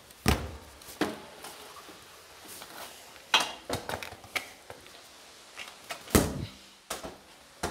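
Handling noise of a phone held in the hand: about five separate knocks and thumps with faint rustling between them.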